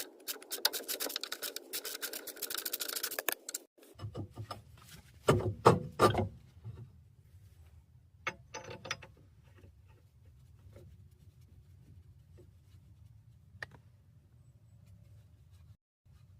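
Rapid scraping and rubbing of tools on the front suspension parts, which stops suddenly about four seconds in. It is followed by a few loud metal knocks a little later and scattered light clicks over a low hum.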